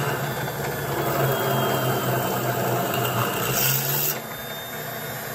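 Small electric drill in a mini drill-press stand running at a steady speed while it drills a hole through a model truck chassis rail. The sound eases a little about four seconds in.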